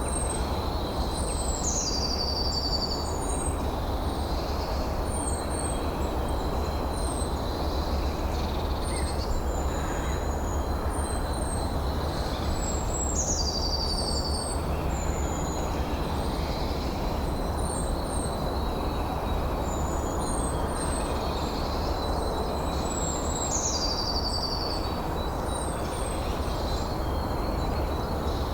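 Steady wind noise with small birds singing over it: many short, high chirps, and three times a falling, trilled song phrase, about eleven seconds apart.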